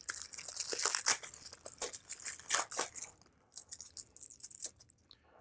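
Blue vinyl electrical tape peeled off its roll and wrapped around speaker wire to build a collar: a crackling, tearing sound of many small clicks, heaviest for the first three seconds, then sparser and fainter.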